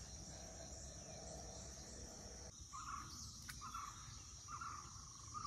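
Faint riverside insect drone, a steady high-pitched hum, with short chirps repeating about once a second from about halfway in. A low rumble underneath cuts off suddenly about halfway.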